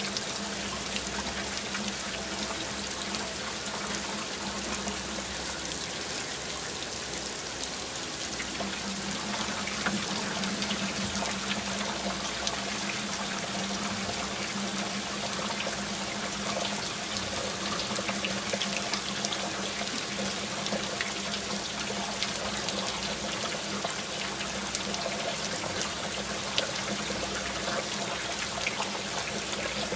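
Heavy rain falling, a steady hiss of water with many small drops pattering, over a steady low hum.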